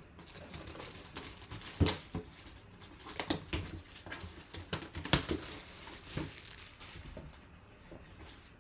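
Plastic shrink-wrap being torn and pulled off a cardboard box, crinkling, with several sharp crackles as the film rips and the box is handled. The loudest come about two seconds and five seconds in.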